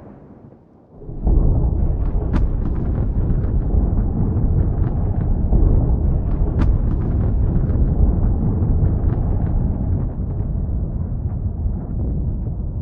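Thunder: the last of a fading rumble, then about a second in a sudden loud thunderclap that rolls on as a long, deep rumble, with crackles scattered through it.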